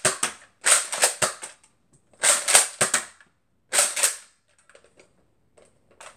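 Nerf Retaliator dart blaster being primed and fired: sharp plastic clacks of the slide and the pop of each shot, in three clusters about a second and a half apart, then a few faint clicks near the end.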